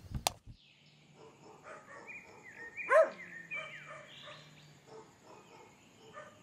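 A dog barks once, loudly, about three seconds in, with fainter barks and yelps scattered around it. A faint, high-pitched steady chirping runs underneath.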